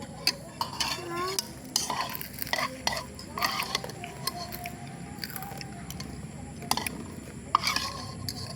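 Eating utensils clinking and scraping against a bowl, a scattered series of sharp clinks.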